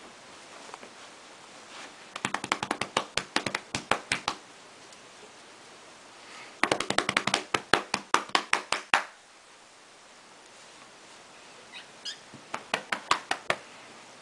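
Hands drumming rapid slaps on a cat's back and sides like bongos: three runs of quick pats, each about two seconds long, about seven a second.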